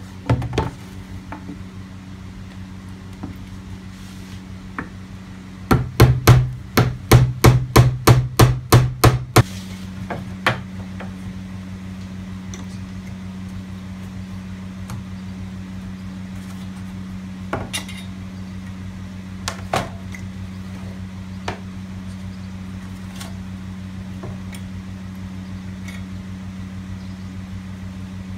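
A hammer striking rapidly, about fourteen blows at roughly four a second, starting about six seconds in and stopping about three and a half seconds later, over a steady low hum. A few lighter knocks follow later.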